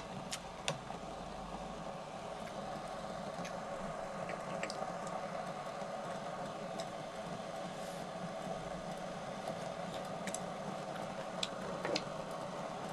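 Shabu shabu hot pot of broth simmering on its tabletop cooker, a steady hum with scattered light clicks of chopsticks against the bowls and pot. Near the end a short scrape as a ceramic bowl is handled.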